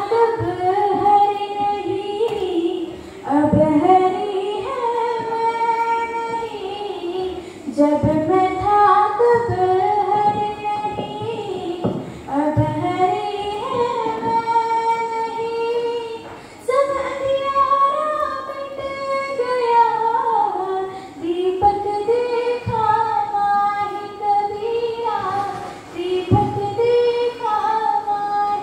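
A girl singing solo and unaccompanied, in long held, sliding phrases of about four seconds with short breaths between.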